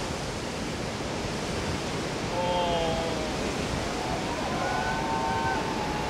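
Heavy big-wave surf breaking and churning, a steady rushing hiss mixed with wind on the microphone. Faint short calls, like distant shouts, come through about two and a half seconds in and again near the end.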